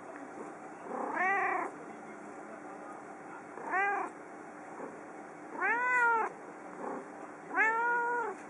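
A calico domestic cat meows four times, each call rising and then falling in pitch. The last two calls are longer than the first two. These are coaxing, attention-seeking meows from a lonely cat wanting its owner's company.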